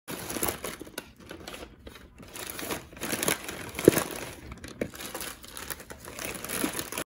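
Plastic carrier bag and snack packets crinkling and rustling as snacks are packed into the bag, with a sharp crackle about four seconds in.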